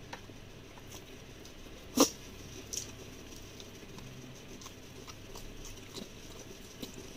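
Close-miked eating sounds: soft wet mouth clicks and chewing of spicy food eaten by hand, with one sharper click about two seconds in.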